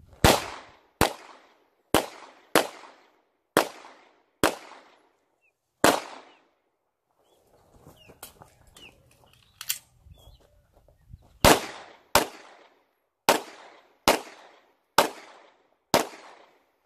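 Sig Sauer P320 X V-TAC pistol fired during an action-shooting stage: seven sharp shots at uneven spacing over about six seconds, then a pause of about five seconds with faint clicks and one fainter crack, then six more shots.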